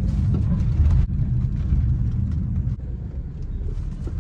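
A car in motion: a steady low rumble of engine and road noise heard from inside the cabin. It eases off a little about three seconds in.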